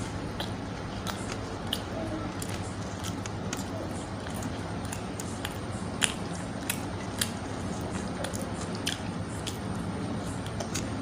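A person eating roti and vegetable curry by hand from a steel plate: close-up chewing and mouth smacks with scattered sharp clicks, the loudest about six and seven seconds in, over a steady low hum.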